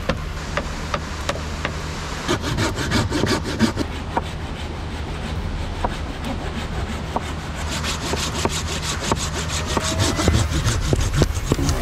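Hand saw cutting into a dry wooden pole in quick, evenly repeated back-and-forth strokes.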